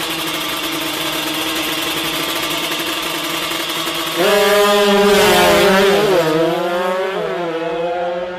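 Drag-race motorcycles held at steady high revs on the start line, then launching about four seconds in: louder, with the engine pitch rising and falling as they accelerate away.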